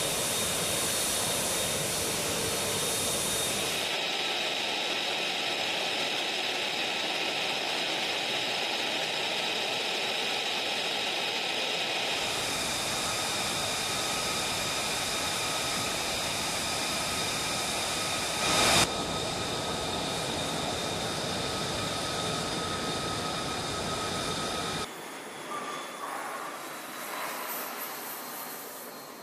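F-35 jet engine (Pratt & Whitney F135 turbofan) running on the ground: a steady rushing noise with high-pitched whine tones. The sound shifts abruptly several times, briefly louder about two-thirds of the way in, and drops quieter for the last few seconds.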